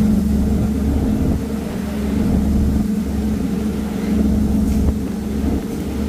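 Boat engine running steadily under way: a constant low hum with a deep rumble that swells and dips every second or so.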